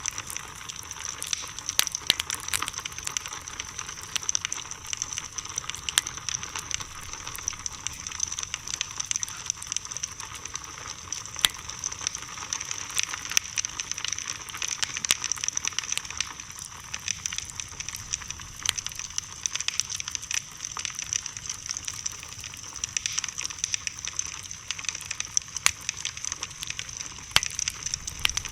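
Bonfire of burning wood crackling: frequent, irregular sharp pops and snaps over a steady hiss.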